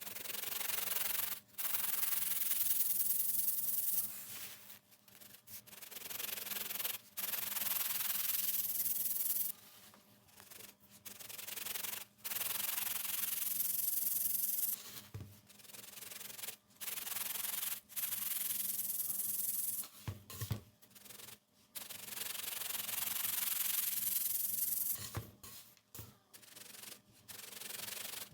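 Crunchy baked baking soda being crushed and crumbled, a gritty crunching that comes in stretches of a few seconds each, broken by short pauses.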